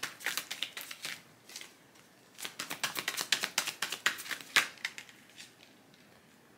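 A deck of tarot cards being shuffled and handled by hand: quick, crisp card flicks and clicks in a short run at the start and a longer, denser run a couple of seconds in.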